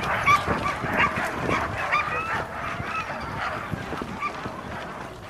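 A team of sled dogs barking and yipping together, many short high calls overlapping. The calls thin out and grow quieter after about two and a half seconds.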